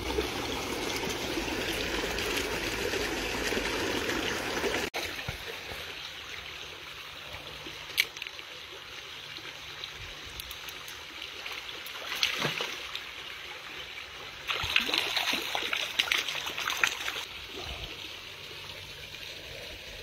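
Shallow stream water rushing and splashing around wading legs, dropping suddenly to a quieter steady flow about five seconds in. Near the end come clusters of splashes at the surface as a small brown trout is reeled in.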